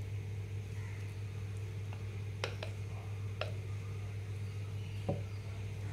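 A plastic spatula scraping thick cake batter out of a glass mixing bowl, with a few light clicks as it knocks against the bowl, over a steady low hum.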